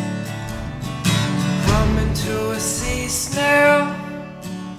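Music: an acoustic folk song led by strummed acoustic guitar.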